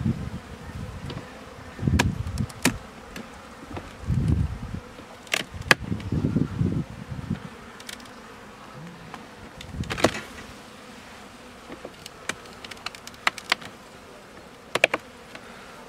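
Honeybees buzzing over the open hive while a metal hive tool scrapes and knocks on the wooden top bars, clearing off wax bridges (burr comb) built in autumn. Sharp clicks come at uneven intervals, with a few dull low thumps in the first ten seconds.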